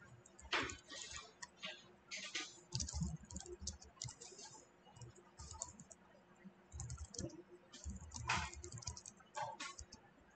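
Typing on a computer keyboard: short irregular runs of keystrokes with brief pauses between them.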